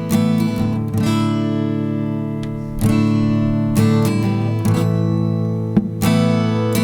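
Acoustic guitar strumming chords in an instrumental break of a worship song, without singing.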